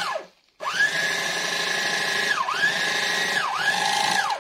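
Revo Model DA portable bag-closer sewing machine's electric motor running a chain stitch through a woven plastic bag, as a test stitch after the thread tension was loosened. A short burst at the start falls in pitch. Then about half a second in a steady whine begins, dips in pitch twice, and cuts off at the end.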